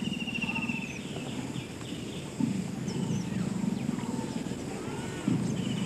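Leopard giving low, rasping growls in drawn-out stretches of about two seconds each, one starting about two and a half seconds in and another near the end. Birds chirp throughout.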